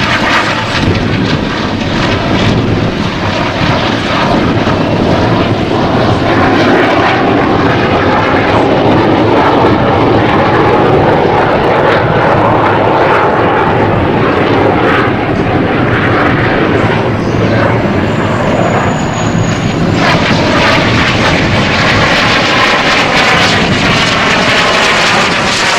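Snowbirds' CT-114 Tutor jets, each with a single J85 turbojet, flying the display with a loud, steady jet rush. In the last several seconds the sound takes on a sweeping, phasing quality as the jets pass overhead.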